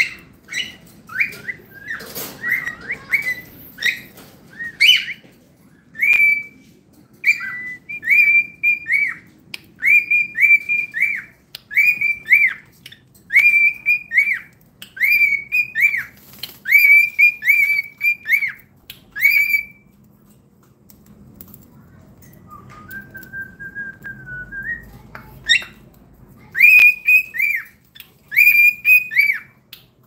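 Cockatiel whistling a long run of short, arching notes in quick groups of two or three, with a pause about two-thirds through broken by one lower, steadier whistle before the arching notes return near the end.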